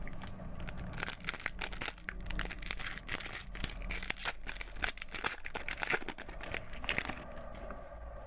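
Foil wrapper of a 2009-10 Panini Classics basketball card pack being torn open and crinkled by hand: dense crackling from about a second in until about seven seconds in.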